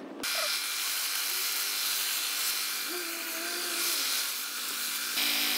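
A benchtop belt sander running steadily with a wooden end piece held against the belt; the sound steps up louder about five seconds in.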